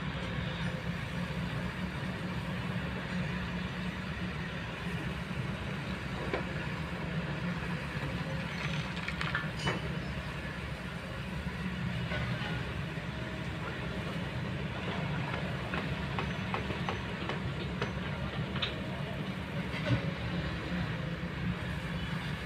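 Kobelco long-reach excavator's diesel engine running steadily at work, a low rumble, with a few short sharp knocks scattered through it.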